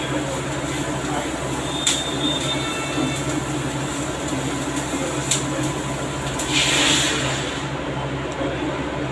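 Plastic spatula stirring instant noodles simmering in a steel pan on an induction cooktop, with a couple of sharp taps against the pan and a steady hum beneath. A brief hiss swells and fades about seven seconds in.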